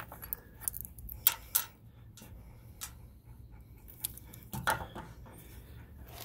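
A few sharp light clicks and small rattles, loudest a little over a second in, from a screwdriver, a loose screw and a plastic trim end cap being handled just after the screw is backed out.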